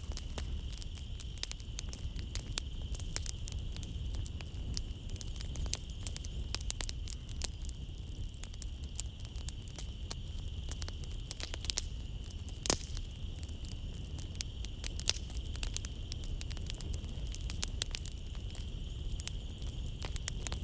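Wood fire crackling in a fireplace, with frequent sharp pops and snaps over a low rumble, one louder pop about two-thirds of the way through. A steady high chirring of night insects runs beneath it.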